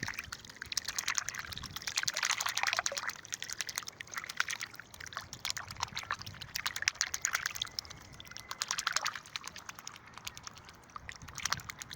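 Hybrid Canada–Chinese goose dabbling for dandelions in water, its bill rapidly snapping and slurping at the surface in quick clusters of fine clicks and splashes.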